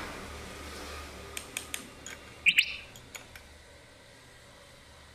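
A few light clicks, then a short double chirp of a small bird about two and a half seconds in, over a low workshop background.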